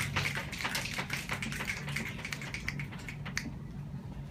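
Audience snapping their fingers in applause for a finished poem: a dense scatter of many quick snaps that thins out and stops about three and a half seconds in.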